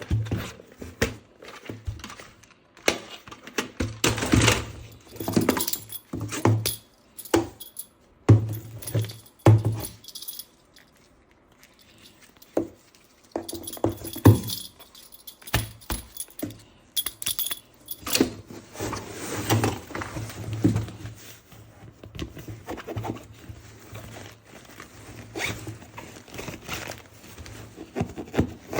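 Hard plastic toy parts and packaging being handled: quick irregular clicks, rattles and scrapes, with a pause of a couple of seconds near the middle.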